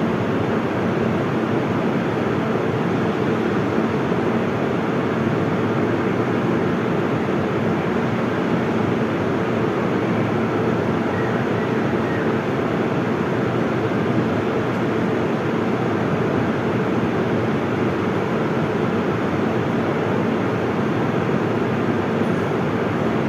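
Metro train running at a steady speed: a continuous, even rumble with faint steady hums, unchanging throughout.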